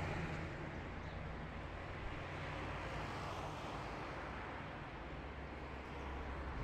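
Steady low rumble of distant road traffic, a quiet outdoor ambience.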